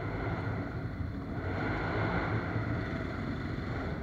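Off-road vehicle engine running steadily while riding a trail, with wind rushing over the microphone that swells in the middle.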